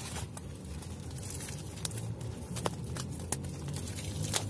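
Hands handling a shrink-wrapped album package and pulling at its clear plastic wrap, giving a few sharp crackles and taps.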